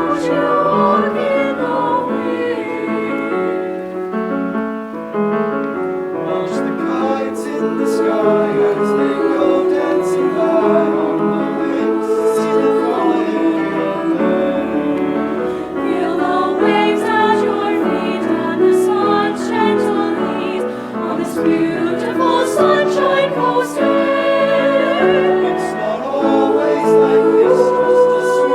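School choir singing in harmony, many voices holding chords that shift every few seconds, with sharp sung consonants heard from about six seconds in.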